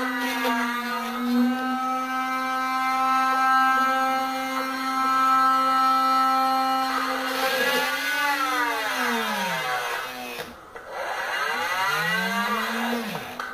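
Small 12-volt DC motor of a homemade mini bench drill whining at a steady high pitch. About eight seconds in it slows and the whine falls, then it speeds up again and falls once more near the end.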